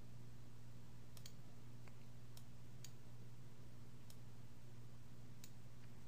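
About five single computer mouse clicks, spaced out, over a steady low electrical hum.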